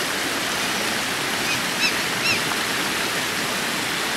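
Creek water rushing steadily over stones. About halfway through, three short high chirps sound over it.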